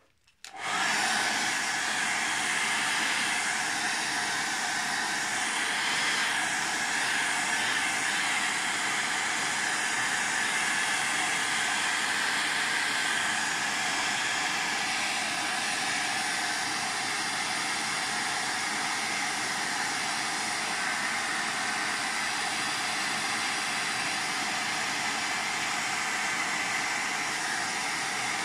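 Hair dryer switched on about half a second in, then blowing steadily at an even level, drying wet paint on a journal page so the colours don't mix.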